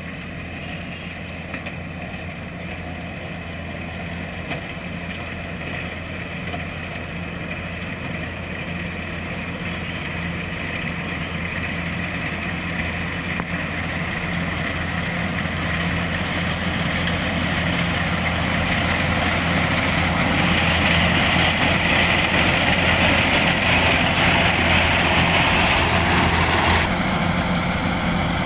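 Kubota DC-105X rice combine harvester's diesel engine and threshing machinery running steadily, growing gradually louder as it comes closer. The harsher upper part of the noise swells in the last third, then cuts off suddenly near the end while the engine hum goes on.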